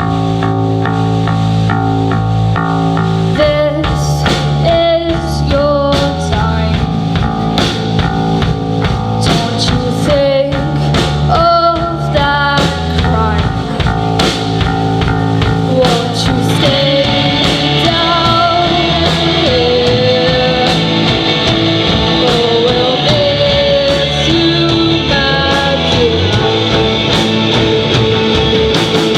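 Live rock band playing a song: electric guitar and bass over a drum kit. The drums come in a few seconds in, and the cymbals grow louder about halfway through.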